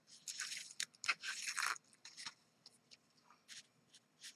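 Punched cardstock paper flowers crinkling and rustling as they are handled, in several short bursts with a few sharp clicks.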